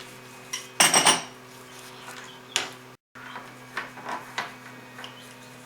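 Metal clinks and knocks from parts or tools being handled, the loudest a short clatter about a second in, with a few more scattered later, over a low steady hum.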